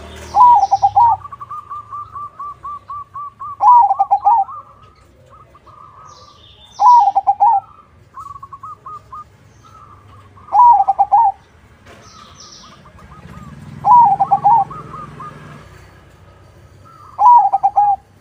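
Zebra dove (perkutut, a crossbred bird) singing its cooing song: a loud cooing phrase about every three and a half seconds, six in all, with softer runs of quick cooing notes in between.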